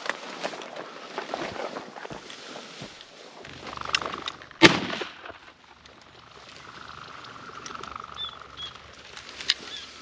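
Footsteps crunching through dry sagebrush and grass, then a single loud shotgun shot a little before halfway through. A smaller, sharp click comes near the end.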